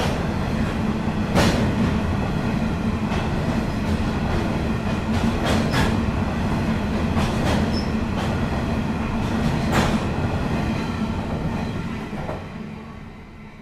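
Coal train wagons rolling past, a steady rumble broken by irregular sharp clicks of wheels over rail joints. The sound dies away near the end as the last wagons pass.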